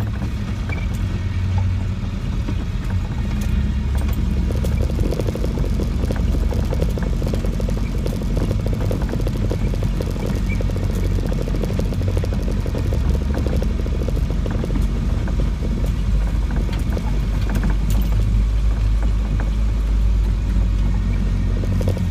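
Land Rover 90's diesel engine and drivetrain droning steadily, heard from inside the cab while it crawls along a rough track, with scattered small knocks and rattles from the bodywork.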